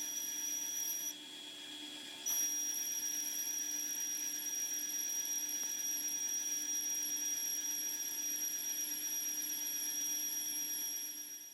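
A machine's electric motor running with a steady high-pitched whine over a constant lower hum. The whine drops out about a second in and comes back about a second later.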